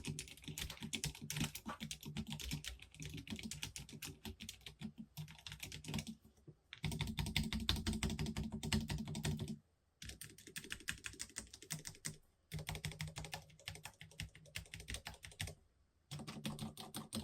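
Fast continuous typing on a low-profile mechanical keyboard with soldered Huano red linear switches, keys clicking in quick succession. The typing comes in several runs with brief pauses between them.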